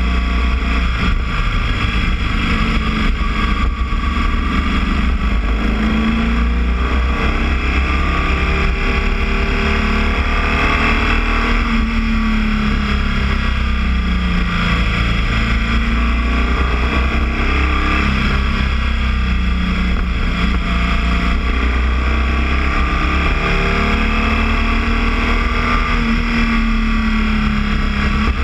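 Boxer twin motorcycle engine running while riding, its pitch rising and falling slowly every few seconds as the engine speeds up and eases off.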